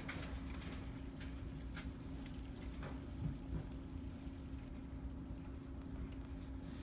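Steady low rumble of storm wind, with a faint constant hum under it and a few faint light clicks.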